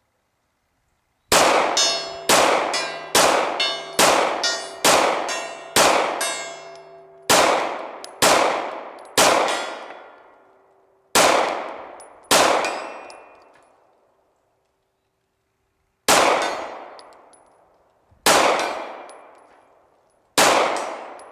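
Glock 19 9mm pistol fired about fourteen times at steel targets, each shot followed by the loud clang and ringing of the struck steel. The first eight or so shots come in a quick string, then single shots follow a second or more apart.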